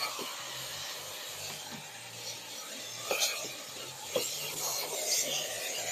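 Canister vacuum cleaner running steadily while its nozzle rubs and scrapes over the car's interior, with a few sharp knocks about three and four seconds in.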